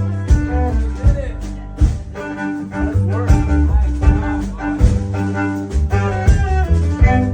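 Music with a steady beat, string instruments and bass.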